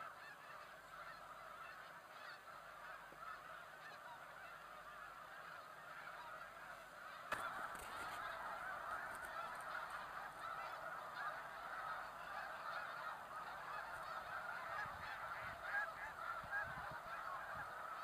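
A large distant flock of geese honking, a continuous massed chorus of overlapping calls. A short knock comes about seven seconds in, after which the chorus is a little louder.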